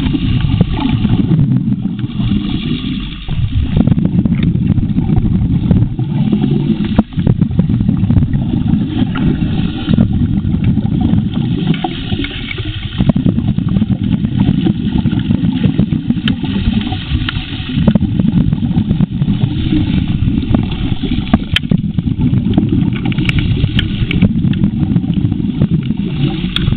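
Suction dredge running, heard underwater: a steady, loud low rumble from the dredge's engine and pump, with frequent sharp clicks and rattles of gravel and stones being drawn into the intake nozzle.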